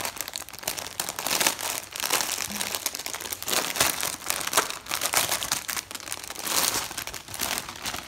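Thin clear plastic bag crinkling and crackling continuously as hands open it around a folded blanket.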